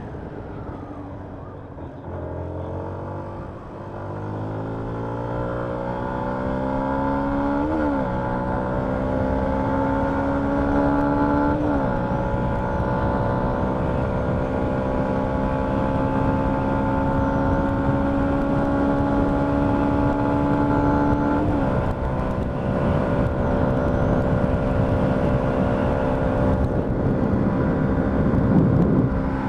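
Yamaha MT-125's single-cylinder four-stroke engine accelerating hard, its note climbing through the gears. It drops quickly in pitch at upshifts about eight, twelve and twenty-one seconds in, then holds a steady note at cruising speed.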